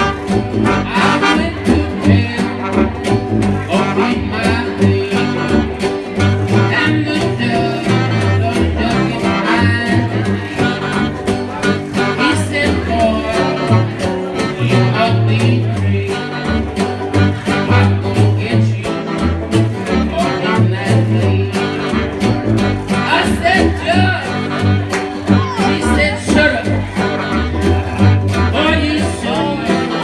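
A traditional New Orleans jazz band playing live: clarinet and horns over a stepping tuba bass line, with guitar and washboard keeping a steady beat.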